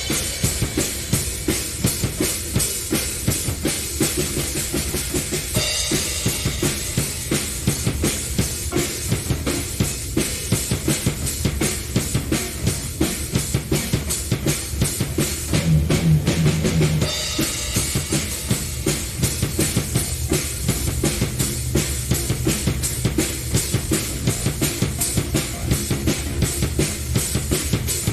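Drum kit played in a busy, continuous groove: kick drum, snare and cymbals, with a held low note sounding briefly about halfway through.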